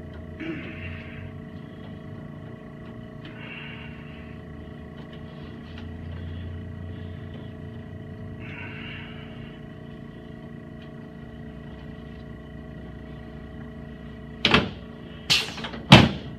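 A faint steady hum with a few soft rustles. Near the end come three sharp, loud knocks less than a second apart, from chiropractic adjustments on the treatment table.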